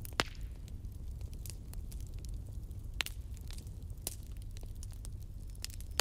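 Wood bonfire crackling: scattered sharp pops and snaps over a steady low rumble of flames, the loudest pop just after the start and others about three and four seconds in.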